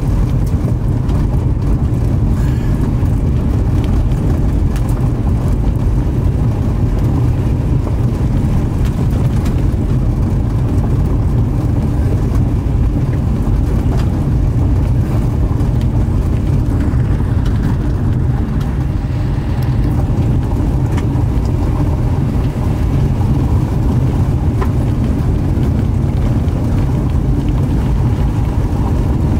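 Steady low rumble of a car driving, at an even level throughout.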